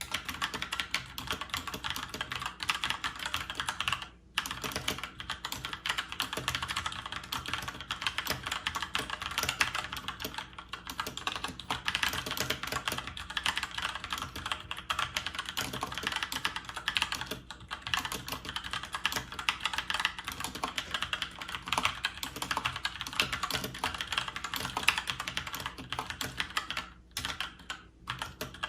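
Continuous fast typing on a Keychron K2 mechanical keyboard with Gateron switches: a steady stream of key clicks, with brief pauses about four seconds in and near the end.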